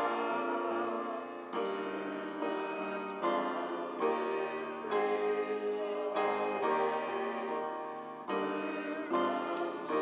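Church choir singing a hymn with grand piano accompaniment, sustained chords moving from one to the next about every second.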